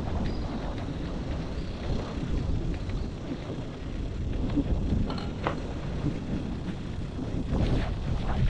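Wind buffeting the microphone: a steady low rumble, with a few faint taps over it.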